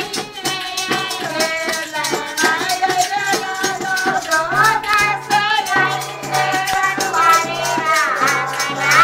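Women singing a Malwi folk song to their own accompaniment on hand-held tambourines, frame drums with metal jingles, shaken and struck in a steady rhythm.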